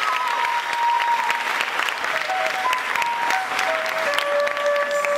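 Audience applauding, with a flute playing a slow melody of long held notes underneath the clapping.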